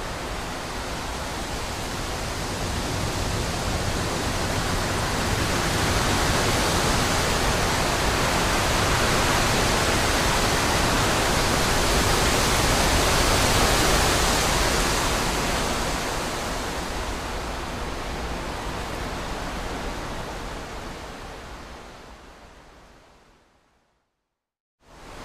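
Wind rushing through trees as a steady, even noise. It swells to its loudest about halfway through, then fades away to silence near the end and starts up again right at the close.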